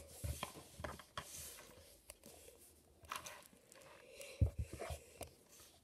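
Faint clicks and rattles of plastic LEGO bricks being handled and pressed together, with a louder soft knock about four and a half seconds in.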